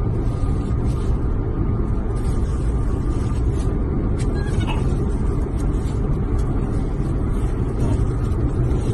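Steady low road and engine rumble inside a moving car's cabin, with a few faint clicks.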